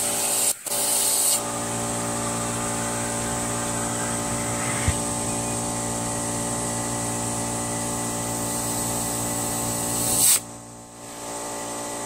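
Air compressor running steadily while air hisses through a chuck into an inner tube fitted inside a lawn tractor tire, slowly inflating it. About ten seconds in the hiss swells, then cuts off.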